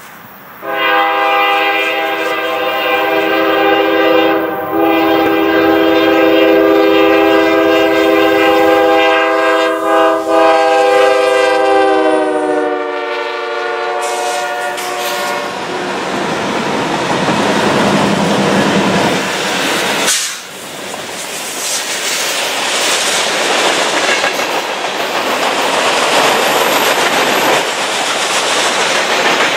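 Norfolk Southern freight train's lead locomotive, a GE Dash 9, sounding its multi-note air horn in long blasts with two brief breaks, the chord dropping in pitch as it passes about halfway through. Then the eight-unit locomotive consist and the freight cars roll by, wheels clacking steadily.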